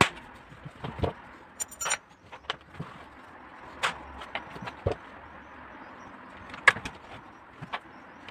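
Irregular clicks and knocks of hands and tools working on a washing machine, with one sharper knock about two-thirds of the way through.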